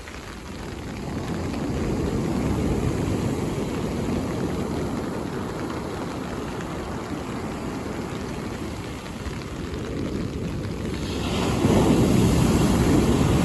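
Mediterranean sea waves breaking on the beach: a steady wash of surf that swells about two seconds in. Near the end a louder wave crashes.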